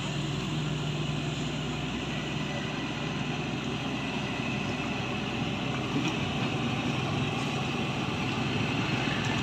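Shantui hydraulic excavator's diesel engine running steadily.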